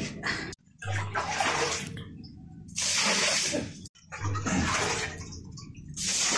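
Water splashing as it is poured from a small metal pot into a large stainless steel stockpot of soaking rice, in several separate pours.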